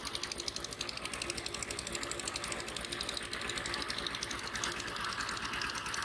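A small engine running steadily, a fast, even chugging that does not change.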